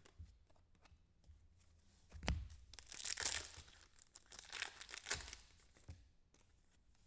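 Faint crinkling and tearing of foil trading-card pack wrappers being opened and handled, in a few irregular rustling spells.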